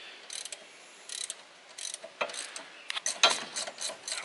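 A 3/8-inch hand ratchet clicking in short, irregular bursts as it turns the bolts holding a rear wheel hub; the clicking is loudest near the end.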